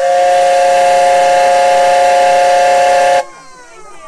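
Steam whistle of a ride-on miniature steam locomotive, modelled on a C58, blowing one long blast of about three seconds. The blast is a loud chord of several held tones and cuts off sharply.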